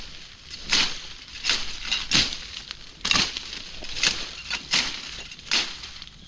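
Footsteps crunching through dry leaf litter and twigs in forest undergrowth at a slow walking pace, about seven crunches.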